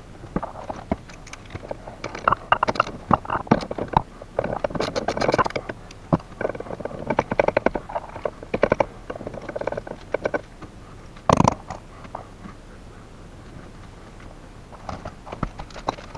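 Hand tools undoing the bolts and nuts on the VAZ 2110 gearbox's end cover: irregular metallic clicks and clinks in quick clusters, with one louder knock about eleven seconds in.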